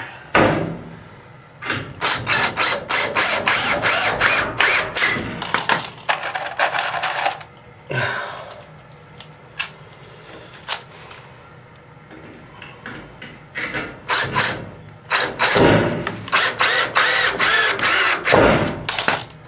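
Cordless drill driving screws through a steel stud into a wooden backing block: two runs of a few seconds each, the first about two seconds in and the second past the middle, with rapid clicking as the screw bites through the metal.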